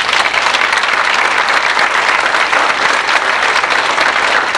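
Audience applauding, dense steady clapping from a large crowd.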